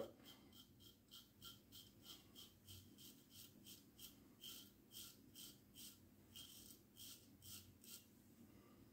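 Short, faint scraping strokes of a vintage lather-catcher safety razor cutting stubble, about three a second, stopping near the end.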